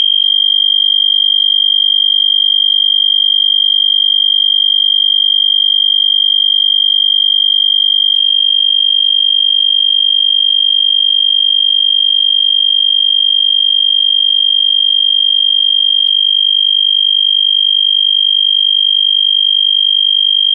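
EST Genesis fire-alarm horn strobe sounding one steady, unbroken high-pitched tone. It is set to continuous rather than the code-3 temporal pattern by a cut jumper.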